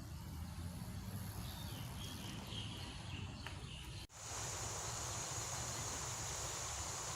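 Outdoor ambience: a steady low rumble with a few faint chirps, and after an abrupt cut about four seconds in, a steady high-pitched insect drone over the rumble.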